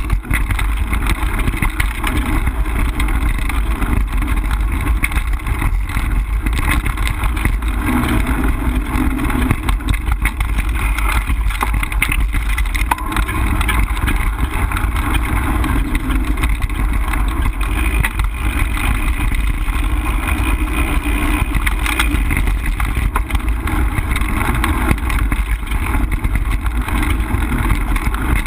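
Mountain bike riding over a dirt singletrack, heard from a handlebar-mounted camera: a steady loud rumble of wind and trail vibration with constant rattling and clattering of the bike over bumps.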